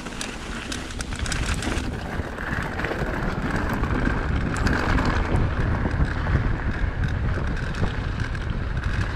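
Mountain bike descending a rough dirt trail: tyres rumbling over the ground with knocks and rattles from the bike, and wind buffeting the action-camera microphone. It gets louder about two seconds in.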